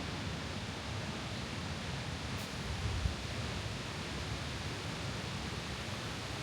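Waterfall rushing steadily, an even wash of falling-water noise with some low rumble.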